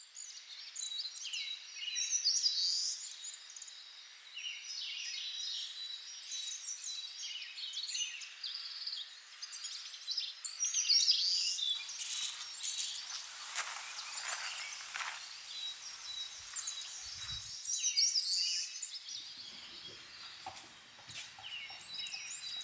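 Forest ambience: several wild birds chirping and calling in short phrases, over a thin, steady, high-pitched tone. A soft high hiss rises for a few seconds about halfway through.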